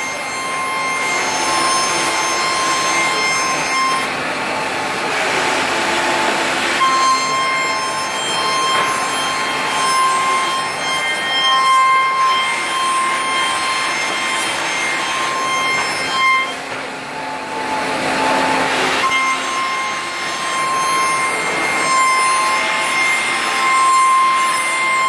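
CNC router with a 12 kW spindle cutting solid wood: a steady high whine over a rasping cutting noise. The whine fades twice for a few seconds, about five and seventeen seconds in, while the cutting noise swells.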